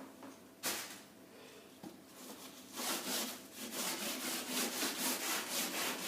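Steel wool scrubbing paint stripper off pine floorboards: one sharp stroke under a second in, then rapid back-and-forth rubbing strokes, about three a second, from about halfway through.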